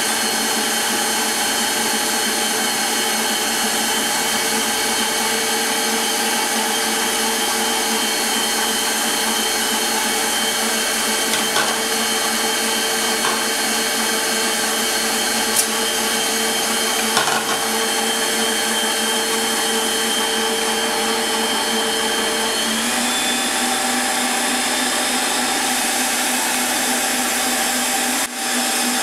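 Electric stand mixer running steadily, its beater whipping butter, sugar and eggs into cake batter with a constant motor hum. About two-thirds of the way through the motor note shifts slightly in pitch, and a few light knocks are heard over the hum.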